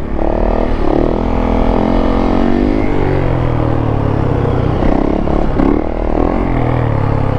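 Yamaha YZ450F single-cylinder four-stroke dirt bike engine running hard under the rider, held in a wheelie, its pitch rising and falling as the throttle is worked.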